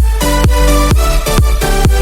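Electronic dance music with a steady four-on-the-floor kick drum under sustained synth chords.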